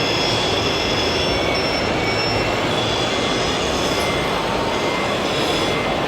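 Small electric motors and hydraulic pumps of RC construction models whining at several high pitches that shift up and down, over a steady dense din.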